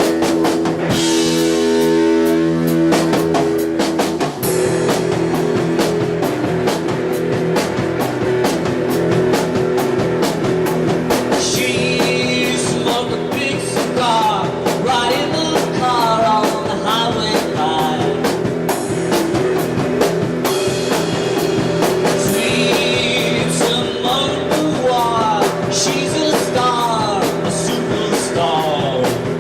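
Rock band playing a song: drum kit and guitar throughout, with a lead line that bends and wavers in pitch coming in from about halfway.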